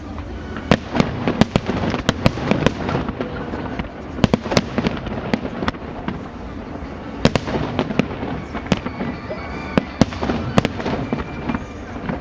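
Fireworks display: shells bursting in sharp, irregular bangs, several a second in clusters, over a continuous crackling background.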